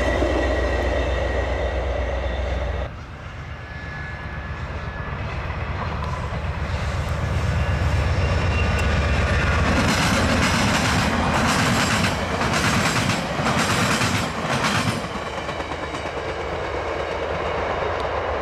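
VIA Rail passenger trains passing at speed: a steady rumble of wheels on rail. The sound cuts abruptly about three seconds in to a second train, whose cars give a run of clicks over the rail joints and then fade slightly as it draws away.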